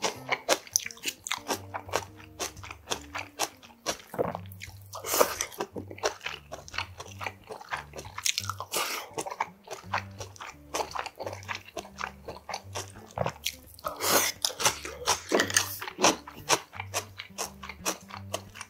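Close-miked mouth sounds of a person chewing and crunching spicy whelk salad (golbaengi muchim) with noodles: wet chewing broken by irregular crisp crunches, loudest about five seconds in and again around fourteen to sixteen seconds in.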